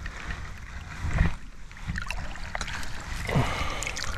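Water splashing and sloshing as a hooked chub is brought in, over a steady low wind rumble on the microphone, with a louder knock about a second in.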